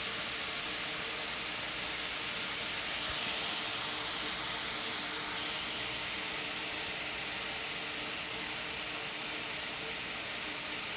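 Mushrooms and minced onion sautéing in a hot pan, giving a steady sizzle.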